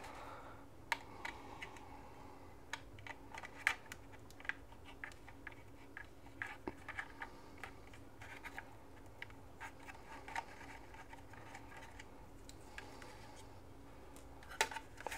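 Faint scattered clicks and ticks of a small T4 Torx screwdriver turning tiny screws out of a drone's plastic body, with hands handling the drone. A louder cluster of taps comes near the end.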